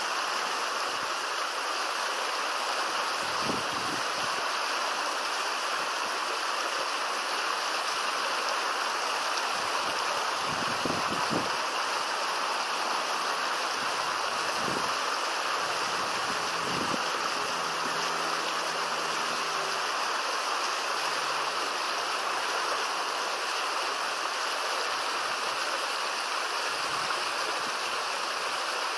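River water flowing with a steady, even rush.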